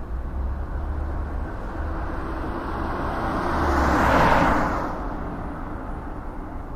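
Road traffic: a steady low rumble with one car passing by, growing louder to a peak about four seconds in and then fading away.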